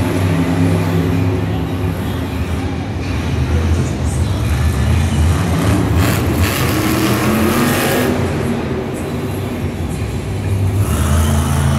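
Monster truck's supercharged V8 engine running and revving as the truck drives across a dirt arena, its low engine note rising and falling in pitch.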